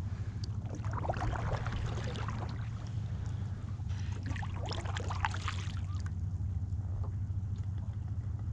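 Water splashing and sloshing at a kayak in two short spells, over a steady low hum.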